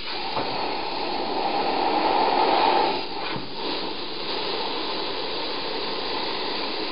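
Compressed air blowing across freshly glued plastic armor to spread the CA glue accelerator: a steady rushing hiss, strongest in the first three seconds, then softer and steady.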